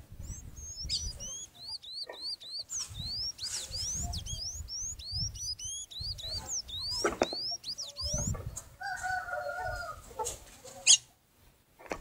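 Songbirds at a fruit feeder: a quick run of thin, squeaky rising chirps for about six seconds, with soft low flutters of wings. A lower, hoarse call follows for a couple of seconds, then a sharp knock near the end.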